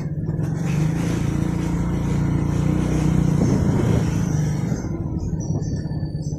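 Motorcycle engine running as the bike rides along, a steady low hum. A rushing hiss lies over it from about half a second in and fades out near the end.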